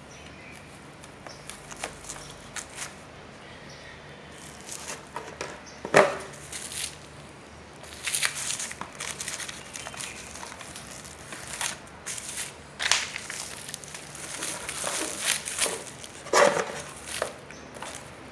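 Parts and their packaging being handled: crinkling and rustling plastic with scattered clicks and knocks. The sharpest knocks come about six seconds in and again near the end.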